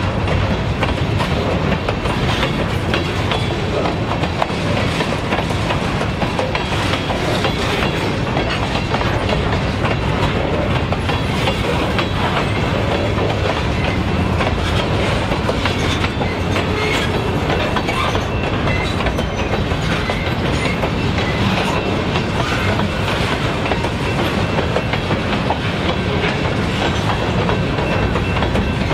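Covered grain hopper cars of a unit train rolling past on bolted jointed rail: a steady rumble of wheels, with repeated clickety-clack clicks as the wheels cross the rail joints.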